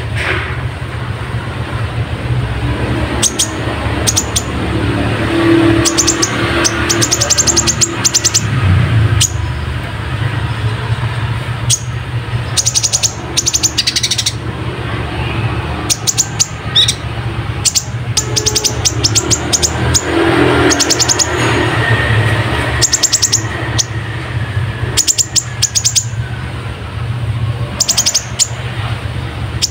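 Brown-throated sunbird (kolibri ninja) singing in repeated bursts of rapid, very high trills, its song filled with imitations of Eurasian tree sparrow chirps. A steady low hum runs underneath.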